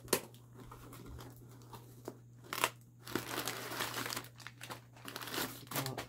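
Cardboard box being opened by hand: a sharp snap as the flaps come free at the start, then packing paper crinkling and rustling as hands dig inside the box.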